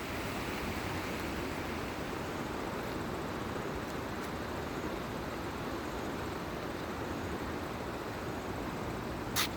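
Mountain valley stream rushing steadily. A single sharp click near the end.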